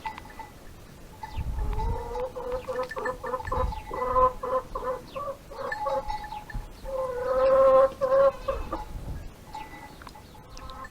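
Domestic hen clucking: a quick run of short clucks that builds to a longer, louder call about seven seconds in, then stops a couple of seconds before the end.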